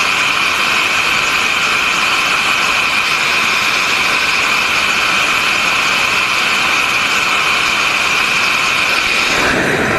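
Jet engines of a carrier aircraft running at high power on the flight deck: a loud, steady rushing noise with a strong high-pitched edge that does not change.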